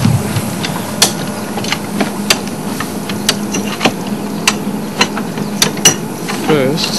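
Tire-changing tools at work on a vehicle wheel: sharp metal ratcheting clicks, roughly one or two a second, over a steady low hum.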